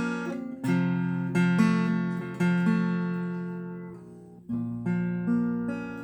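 Acoustic guitar playing slow chords, each strummed chord left to ring and fade before the next.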